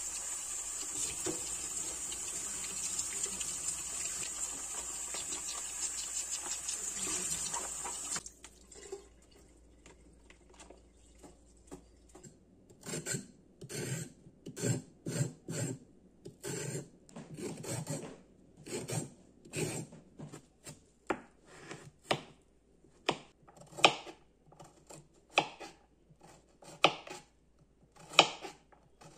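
Kitchen tap running onto cauliflower florets being rinsed in a plastic tub, stopping abruptly about eight seconds in. Later comes a knife chopping a carrot on a plastic cutting board in separate, unevenly spaced strokes.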